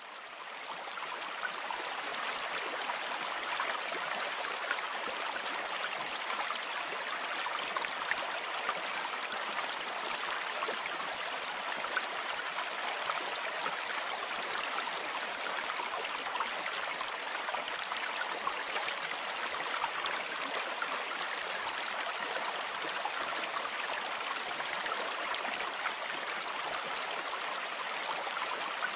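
Steady rush of water pouring from a small battery-powered pump's nozzle onto bare soil, fading in over the first couple of seconds.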